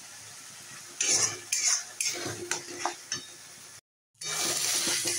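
A flat metal spatula scraping and stirring thick masala paste in a metal kadai of hot oil, with the paste sizzling as it is fried down (koshano). Several quick scraping strokes come between about one and three seconds; the sound cuts out briefly just before four seconds, then returns as a louder steady sizzle.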